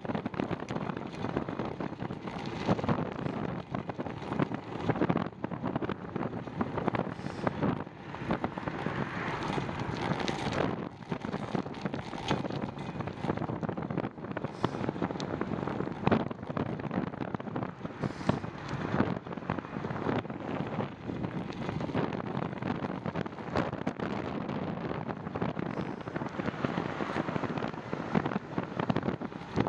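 Gusty wind buffeting the microphone while riding a bicycle: a steady rush with uneven louder gusts.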